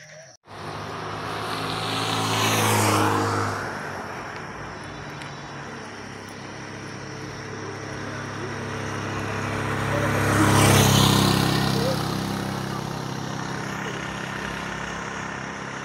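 Two motor vehicles passing on a paved road, one after the other: the engine noise swells and fades about three seconds in, and again, louder, around eleven seconds in.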